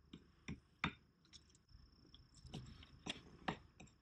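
Faint, scattered light clicks and taps, with a thin steady high tone underneath.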